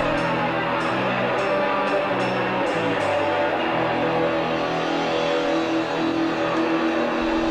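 Live rock band music with guitar and bass. Cymbal hits sound through the first few seconds, then a single note is held from about halfway on.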